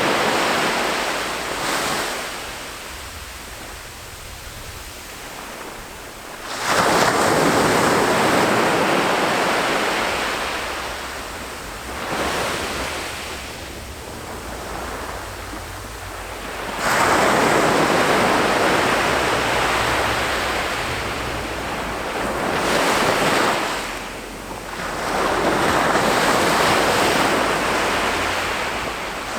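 Ocean surf breaking on a beach. Each wave crashes in suddenly and washes out over several seconds, with quieter lulls between the breakers.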